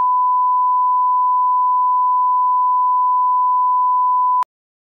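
Broadcast bars-and-tone reference tone: one steady pure pitch that cuts off suddenly near the end.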